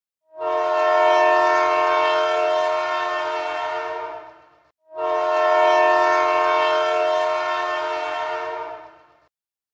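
Train horn sounding two long blasts, each about four seconds, several steady tones together in a chord. The first starts half a second in; the second follows straight after the first dies away.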